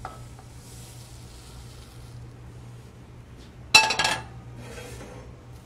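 A stainless steel pot clanks once against the range, ringing briefly, about four seconds in, with a couple of lighter knocks around it. A low steady hum runs underneath.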